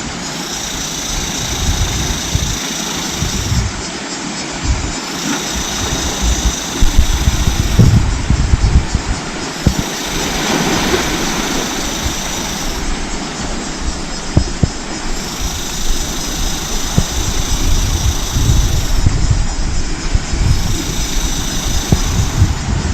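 Sea surf and wind noise, with gusts rumbling on the microphone. Over it, a high steady buzz comes and goes about five times, each spell lasting around three seconds.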